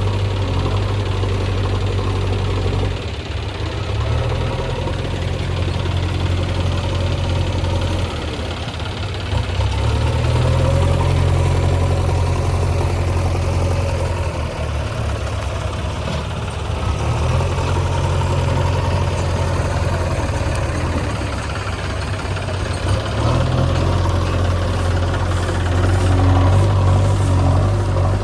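Diesel engine of a JCB 3DX backhoe loader running under working load while digging and loading mud. It swells louder for a few seconds at a time and drops back, several times over.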